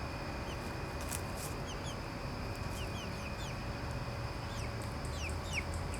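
Backyard chickens peeping and clucking softly: scattered short, high notes that fall in pitch, coming more often near the end.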